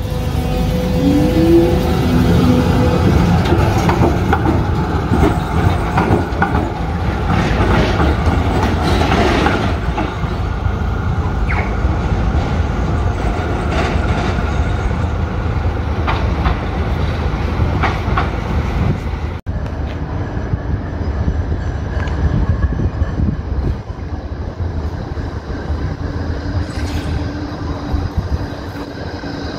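Melbourne trams running on street track: an A-class tram passes through the intersection with a steady rumble and scattered clicks of wheels on rails and points. After a sudden cut, an E-class tram runs in towards the platform.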